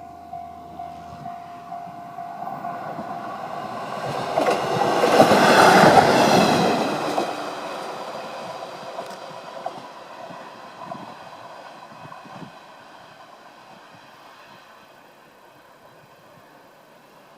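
A level-crossing bell rings about twice a second at the start. A single-car KiHa 110 series diesel railcar then approaches, passes loudest about five to six seconds in with its diesel engine running and wheels on the rails, and fades away.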